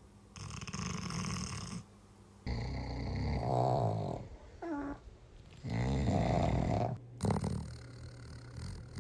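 A sleeping dog snoring: three long, rasping snores about two and a half seconds apart, with a short whistling note that falls in pitch between the second and third, and a brief snort near the end.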